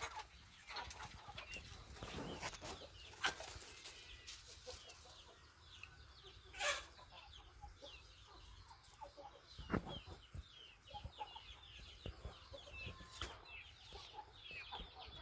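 A flock of chickens clucking, with many short high chirps throughout and a few louder calls standing out now and then.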